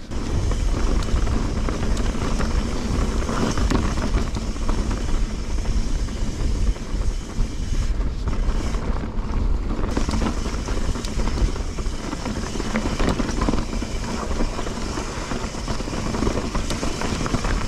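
Mountain bike riding fast over a dirt trail: steady tyre noise with a constant clatter of small knocks from the bike, and wind buffeting the microphone.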